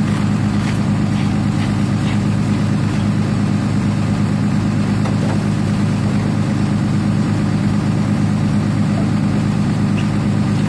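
1998 Chevrolet Malibu engine idling steadily with the hood open, just after a cold start in −7 °F weather.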